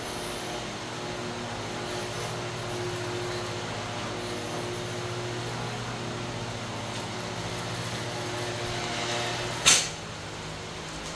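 Steady hum with several fixed pitches from a powered-up custom plastic-netting machine, its motors and drives running. Near the end there is one short, loud burst of hiss.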